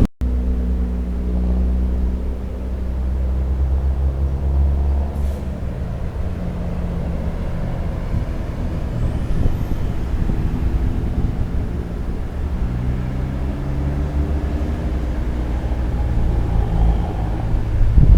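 Bus engine running with a steady low hum, its pitch shifting a few times as the engine speed changes; no horn sounds.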